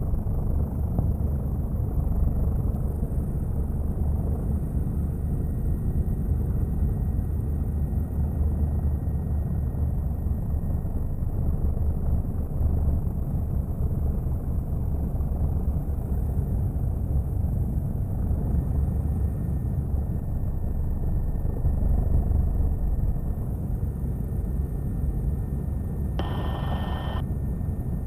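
Steady drone of a helicopter in flight, its rotor and engine noise heard from inside the cabin. A short tone of about a second sounds near the end.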